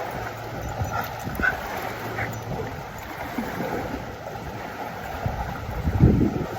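Wind buffeting the microphone over lake water. A few short, high squeaks come between about one and two seconds in, and a loud low thump or bump comes near the end.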